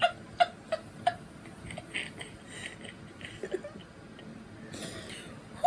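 Two women laughing hard, a few short laughing pulses in the first second tapering off into faint breathy giggles.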